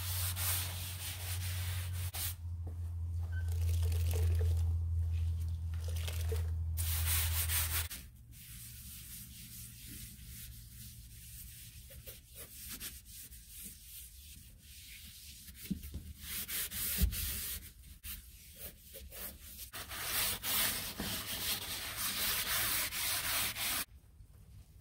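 A cloth rag scrubbing and wiping grimy metal under an old car's dashboard, in stretches of rubbing noise with quieter handling sounds between. A steady low hum runs under the first third and cuts off suddenly.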